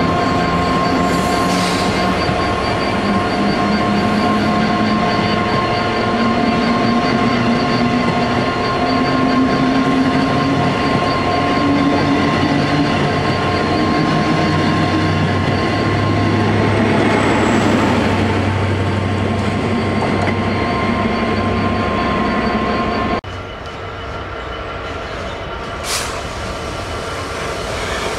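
First Great Western HST (InterCity 125) running past the platform: the coaches rumble over the track, with a steady high whine and a low note from the power cars' MTU diesel engines that rises in pitch as the train gathers speed. About five seconds before the end the sound cuts to the quieter rumble of an EWS Class 66 diesel locomotive hauling a freight train, with one sharp click a few seconds later.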